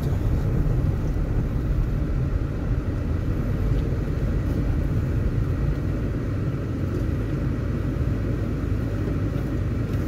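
Steady low rumble of a car driving on the road, engine and tyre noise heard from inside the cabin.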